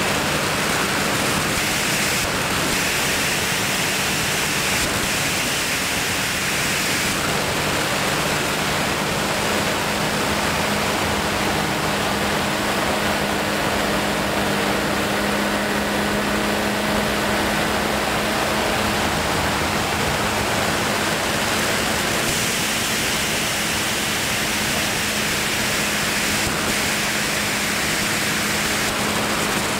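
Steady rush of wind over the microphone in flight, with a faint low steady hum beneath it.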